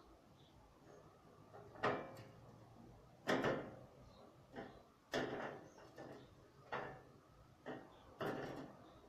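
Irregular knocks and bangs, about eight in nine seconds, each ringing briefly in the room. The loudest comes about a third of the way in.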